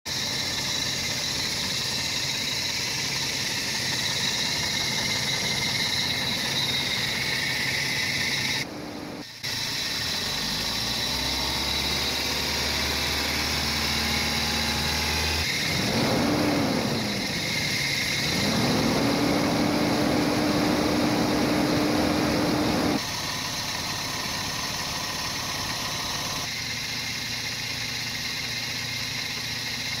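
Toyota 22R-E four-cylinder engine idling while its cooling system is burped through a funnel jug on the radiator. About halfway through the engine is revved, its pitch rising, dipping and rising again and holding for a few seconds, to push air bubbles out of the coolant, then it settles back to a steady idle.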